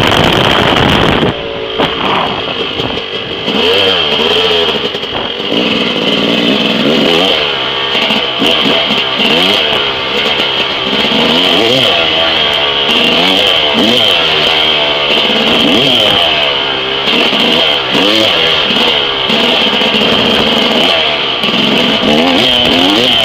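Yamaha YZ250 two-stroke single-cylinder dirt bike engine under way, its revs rising and falling again and again as the throttle is rolled on and off, every second or two. It is a little boggy, which the rider puts down to the bike running nearly out of fuel. In the first second or so, wind rushes over the microphone.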